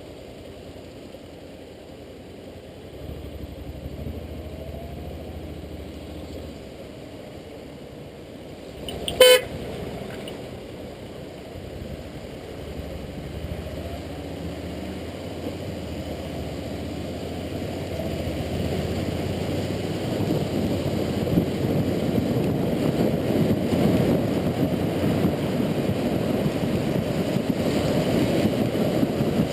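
Motorcycle riding noise, a low running rumble with rushing noise that grows steadily louder as the ride goes on. About nine seconds in comes one short vehicle horn toot.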